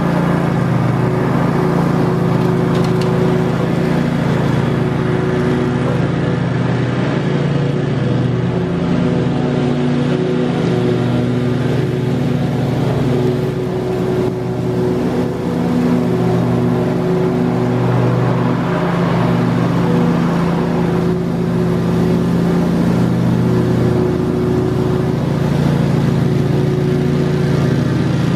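Husqvarna walk-behind mower's engine running steadily with the blades engaged, cutting grass. It runs smoothly on freshly sharpened blades that are balanced as evenly as possible by hand.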